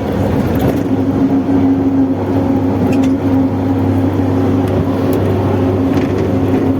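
Mercedes-Benz OF-1721 bus under way, its diesel engine running under a loud, steady droning hum from the cardan driveshaft. The drone eases for a few seconds in the middle and comes back strongly near the end.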